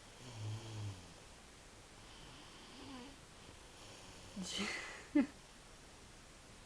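A sleeping person snoring: a low snore about half a second in, soft breathing, then a noisy breath about four and a half seconds in followed by a short, sharp snort, the loudest sound.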